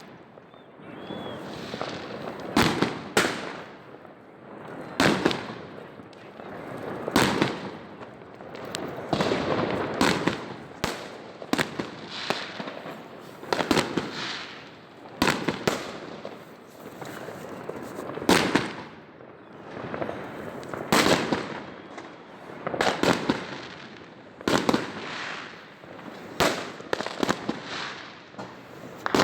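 Fireworks going off: a long series of sharp bangs, roughly one every one to two seconds and sometimes two close together, each trailing off in a short crackling echo.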